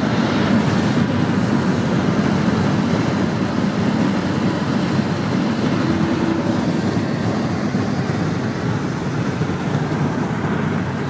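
Steady road and engine noise from inside a car's cabin cruising along a motorway.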